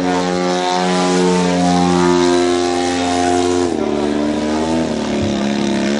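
Radio-controlled aerobatic model airplane's engine and propeller running at high throttle with a steady high pitch, then dropping to a lower pitch about two-thirds of the way through as it throttles back or passes.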